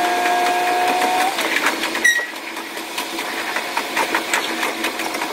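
Fast-forwarded sound of a KiHa 185 diesel railcar on the move: an engine hum that drops away about a second in, as if the throttle is shut off, over a dense run of rapid clicking from the wheels and train. A sharp click with a brief ringing tone comes about two seconds in.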